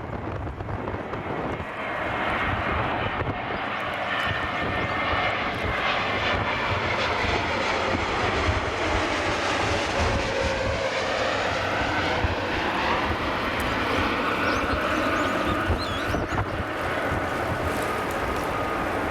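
Jet airliner passing overhead on landing approach: a rushing engine roar that swells about two seconds in, with whining tones sweeping in pitch as it goes by. Strong wind buffets the microphone underneath.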